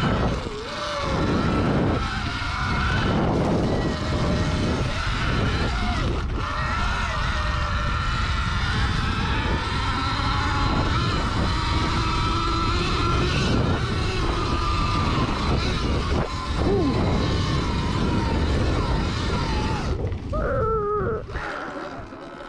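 Sur-Ron electric dirt bike being ridden: the electric motor's whine rises and falls with the throttle over heavy wind rumble and tyre noise from the knobby Kenda K760 tyres. Near the end the whine glides sharply down and the noise eases.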